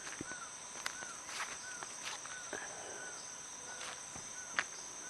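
Steady high-pitched drone of insects, with short chirping notes repeating every half second or so and a few faint clicks.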